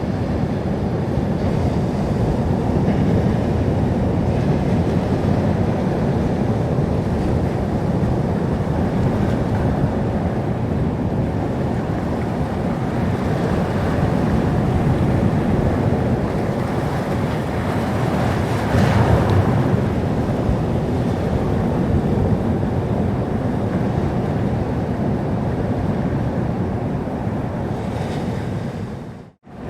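Sea surf: waves washing in steadily onto the shore, with one louder surge of a breaking wave about two-thirds of the way through. Near the end the sound briefly cuts out to silence and comes back.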